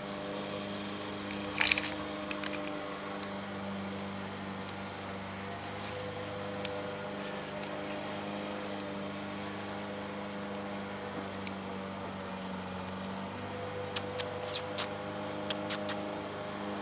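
Short, high-pitched bird chirps, a couple about two seconds in and a quick cluster near the end, over a steady low hum.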